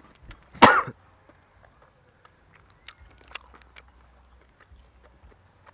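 A single short, loud cough from a man eating, about half a second in, followed by faint clicks of chewing and smacking.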